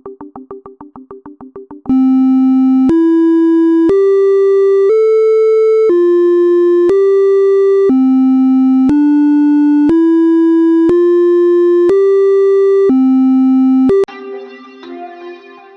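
Music: a quick pulsing two-note electronic beep gives way to a loud synthesizer tune of plain held tones, one note per second, stepping up and down in pitch. Near the end it cuts to quieter guitar music.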